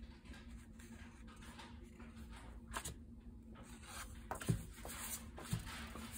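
Loose paper notecards being handled, sliding and rustling against each other as they are leafed through, with a couple of soft knocks about four and a half and five and a half seconds in.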